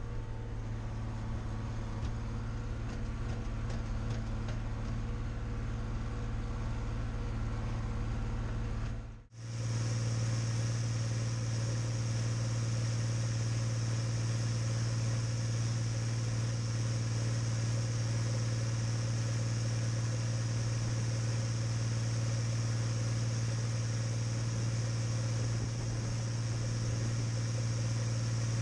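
Deutz-Fahr DX6.05 tractor's air-cooled Deutz diesel engine running steadily with a deep even hum. About nine seconds in the sound cuts out for an instant, then carries on with more hiss.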